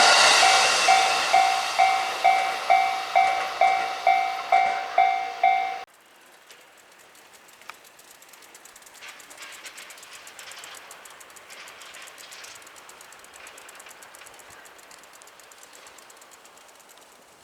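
A train passes close by over a Japanese level crossing while the crossing's electronic warning bell rings, a pitched ding about twice a second, over the loud running noise of the train. About six seconds in, both stop abruptly, leaving only a faint, even background.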